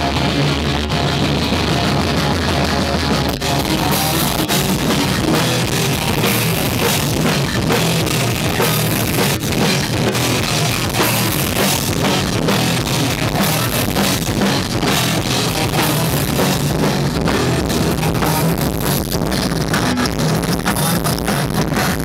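Live rock band playing: electric guitars, bass guitar and drum kit, loud and steady throughout.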